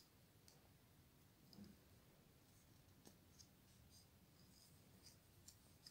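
Near silence: a few faint, soft ticks and rustles of yarn being handled and wound around a plastic ruler.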